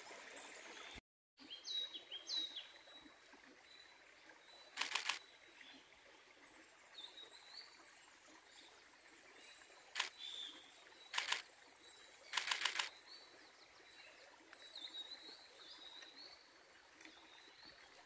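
A camera shutter fires in several short bursts of quick clicks, about four times. Small birds call with short, high chirps between the bursts.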